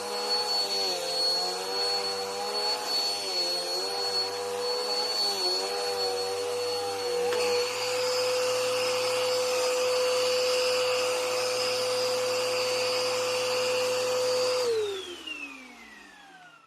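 Bissell PowerLifter bagged upright vacuum running over carpet, its motor pitch wavering up and down with each push and pull. About halfway through the pitch holds steady, and near the end the vacuum is switched off and winds down, its pitch falling as it fades.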